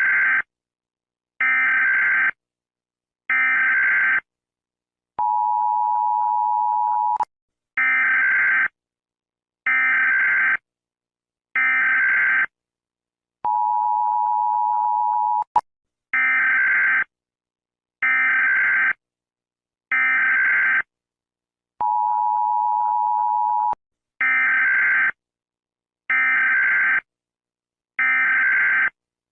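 Emergency alert alarm tone: three short, higher beeps followed by one longer, lower steady tone, the pattern repeating about every eight seconds.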